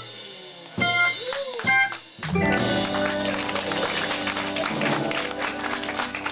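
Organ jazz band ending the song: a few short chord stabs, then from about two seconds in a full final chord held under a wash of cymbals.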